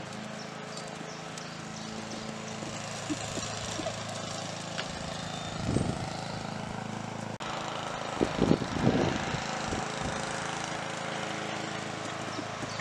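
A lawn mower engine running steadily, with a few dull thuds from a cantering horse's hooves about halfway through.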